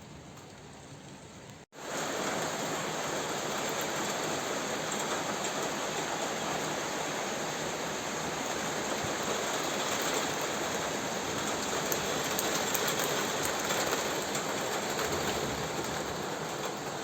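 Heavy downpour of rain, a dense steady hiss with scattered sharp drop ticks, cutting in abruptly about two seconds in after a quieter stretch.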